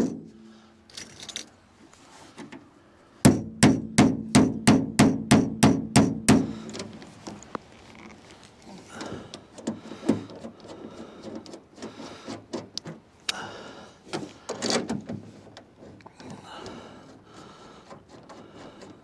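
Hammer tapping transfer punches down into snug drilled holes: a few sharp taps, then a quick run of about ten taps at roughly three a second. After that come softer, irregular clicks and rubbing as a clamp is handled.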